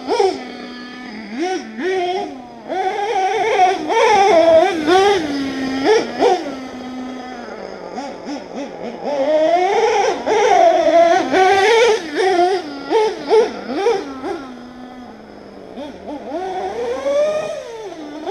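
Small nitro engine of an HPI Savage RC truck, fitted with a dual exhaust, being revved: its pitch rises and falls with repeated throttle blips and drops back to a steady idle between them, several times.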